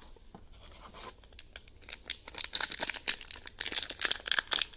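The plastic foil wrapper of a 2020 Topps Stadium Club baseball hanger pack crinkling in the hands as it is picked up. A few faint clicks at first, then loud, continuous crinkling from about two seconds in.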